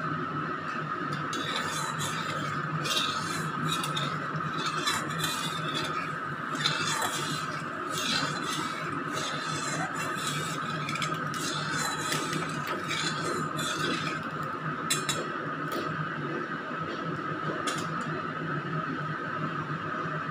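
A metal spatula scraping and clinking against a kadai as it spreads a little heating oil around the pan, in scattered short strokes. Under it runs a steady kitchen hum.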